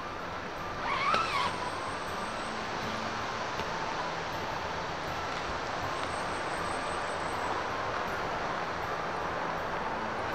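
Steady rushing outdoor background noise, with one short chirp about a second in that rises and then falls.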